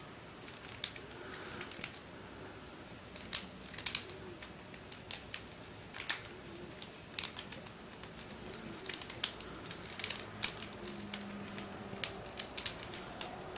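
Hard plastic pieces of a pineapple-shaped burr puzzle (Kong Ming lock) clicking and clacking irregularly as they are handled and pushed at.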